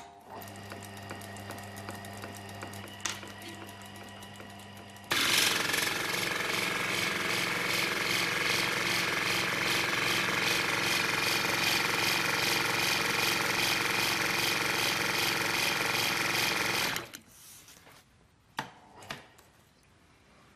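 Belt-driven watchmaking machine running: a steady electric-motor hum, then about five seconds in a sudden, much louder mechanical whirr as the tool works a small watch part. The whirr holds steady until about seventeen seconds in, then stops, followed by a couple of faint clicks.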